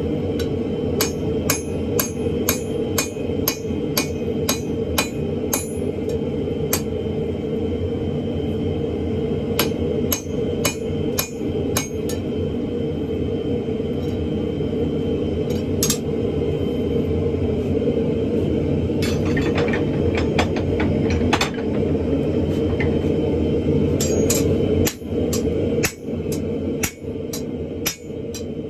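Hammer blows on a hot stainless san mai billet (1084 core, 304 stainless) over the anvil, in runs of about two strikes a second, setting the forge weld. A forge runs with a steady noise underneath.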